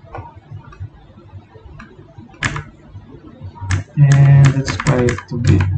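Computer keyboard keys clicking as a terminal command is typed, with sharp separate clicks in the first half. A loud, voice-like sound takes over for about the last two seconds.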